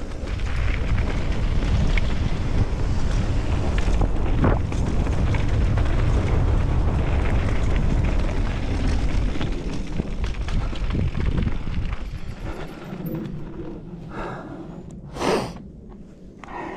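Wind rushing over a helmet-mounted camera's microphone while mountain bike tyres run over a rocky dirt trail at speed, a steady low rumble. It fades as the bike slows near the end, where the rider's heavy breathing comes through, with one loud exhale.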